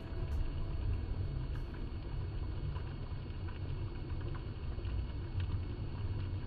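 Steady low rumble of underwater ambient sound on a dive camera, with a few faint scattered clicks.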